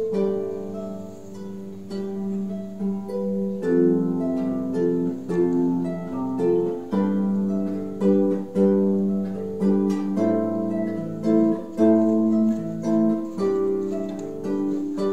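Background music: a plucked-string melody with chords, each note struck sharply and then ringing away.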